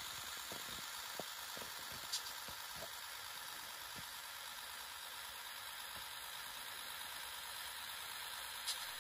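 Model trackmobile running on the layout with its onboard sound-decoder speaker playing a quiet, steady diesel engine sound, and a few light clicks in the first few seconds.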